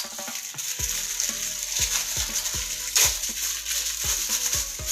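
Background music with a regular low thumping beat, over a steady hiss like sizzling.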